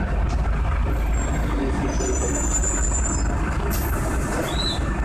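Irisbus Agora city bus heard from inside the cabin: a steady low engine and road drone with rattles, a few thin high squeaks in the second and third seconds, and a short hiss of air a little before four seconds in.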